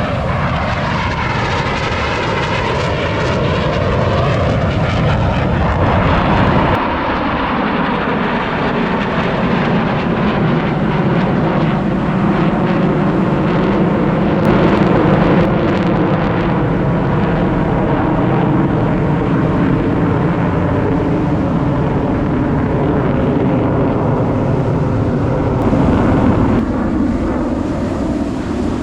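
F/A-18 Super Hornet jet engines passing, loud. In the first few seconds the pitch glides as the jets go by. About seven seconds in the sound changes abruptly to a steady jet noise.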